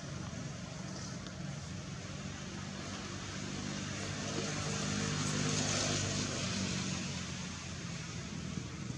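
A motor vehicle's engine running, a steady low hum that grows louder about halfway through and then fades again, like a vehicle passing.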